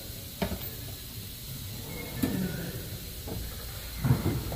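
Three short clunks of hand tools being handled, roughly two seconds apart, with the last the loudest, over a steady low hum.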